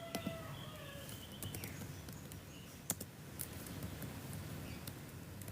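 Scattered sharp clicks and taps of computer input, a few seconds apart, the loudest a little before the 3-second mark, over a low steady background, with faint chirp-like tones in the first two seconds.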